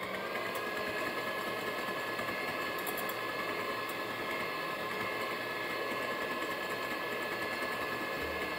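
Moulinex electric hand mixer running at a steady speed with an even motor whine, its beaters whisking egg whites and sugar for meringue in a glass bowl.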